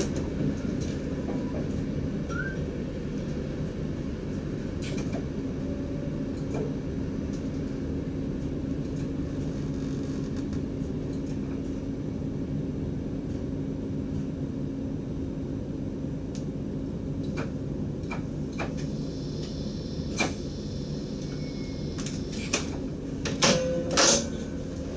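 Steady low hum of a DDZ double-deck electric train heard inside the driver's cab, with scattered faint clicks and a few sharper knocks near the end.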